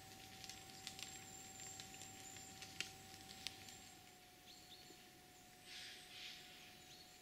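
Near silence: faint outdoor ambience with scattered light ticks and a few faint, short high chirps.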